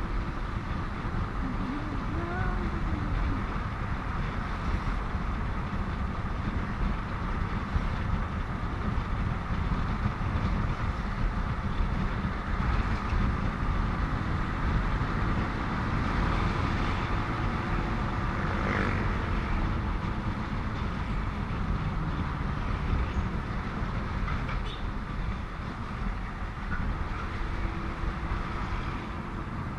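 Steady rumble of riding a motorcycle on a highway: wind buffeting the microphone over engine and tyre noise, with no sharp events.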